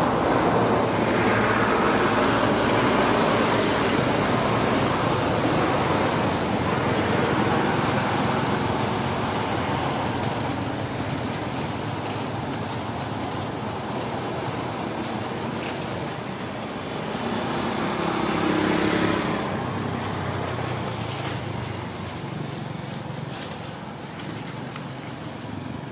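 Steady background noise of road traffic, swelling louder briefly about three-quarters of the way through, then slowly fading.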